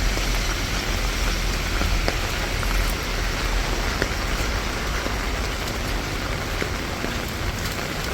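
Rain falling steadily, with scattered sharp ticks of individual drops.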